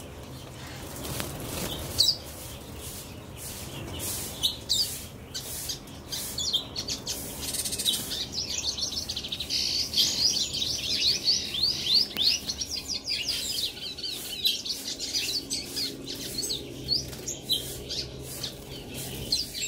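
Caged seedeater, the bird called collarín or setillero (white-collared seedeater), singing: scattered high chirps, with a fast run of quick repeated notes lasting several seconds about halfway through.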